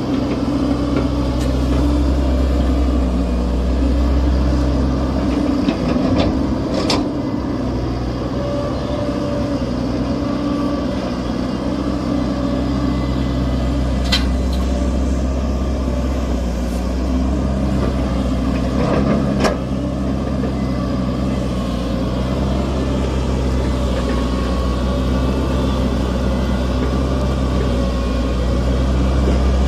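Hitachi excavator's diesel engine running steadily, with a few sharp knocks along the way.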